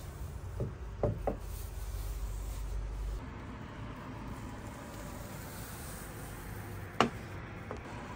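Steady background noise with a few short knocks: three soft ones in the first second and a half, and a sharper, louder one about seven seconds in.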